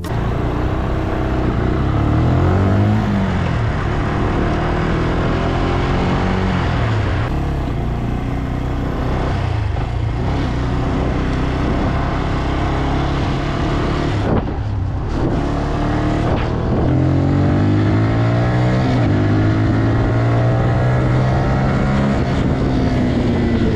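Motor vehicle engine under hard acceleration, its pitch rising and dropping back again and again as it revs up and shifts through the gears.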